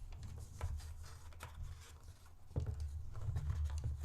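Cardboard packaging being rummaged through and handled, with light rustling and scattered small taps and knocks; the handling noise grows louder past the middle.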